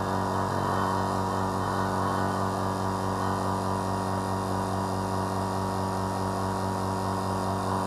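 Electric vacuum pump running with a steady hum, pumping the air out of a glass bell jar.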